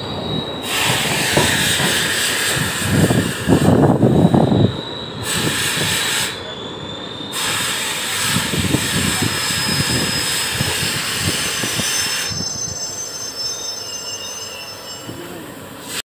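Two trains crossing: the rushing noise and irregular clatter of a passing express train's coach wheels on the rails, loudest about four seconds in. A faint high wheel squeal comes through near the end as the noise dies down.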